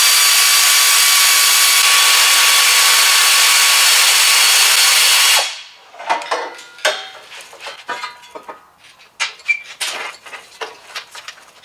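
Pneumatic air ratchet running steadily for about five seconds, backing out the rear bumper's bolts, then winding down. After it come scattered clanks and knocks as the tubular bumper is worked loose and set down.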